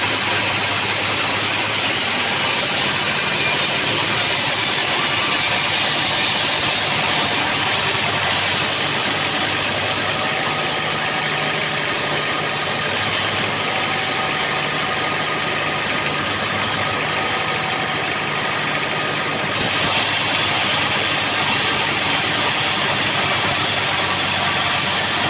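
Homemade bandsaw sawmill running: a steady engine drone under a loud hiss, which gets brighter about 20 seconds in.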